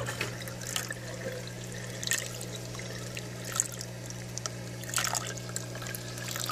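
Aquarium water trickling and splashing into a hang-on overflow box as it refills after the return pump is switched back on, with a few brief louder splashes, over a steady low hum from the running pump.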